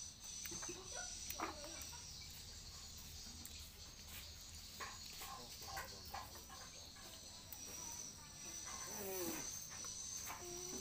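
Faint outdoor background with a steady high insect whine, scattered small clicks, and a few short falling calls about nine seconds in.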